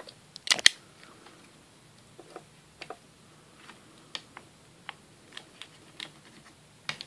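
Sparse light clicks and taps of hands handling a plastic scale-model airplane's fuselage and wings, with a sharper double click about half a second in.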